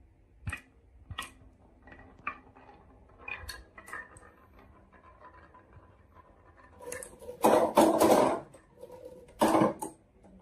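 Marbles clicking and rolling on a wooden marble run: a few scattered clicks, then two louder stretches of rattling rolling, one a little past halfway and one near the end.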